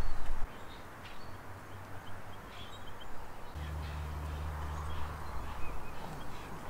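Outdoor riverbank ambience: small birds chirping now and then over an even hiss of wind, with a gust of wind buffeting the microphone that dies away about half a second in. A low steady hum comes in about halfway through and fades near the end.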